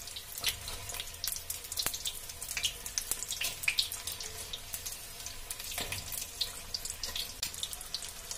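Vegetable spring rolls deep-frying in hot refined oil: a steady sizzle full of quick crackles and pops.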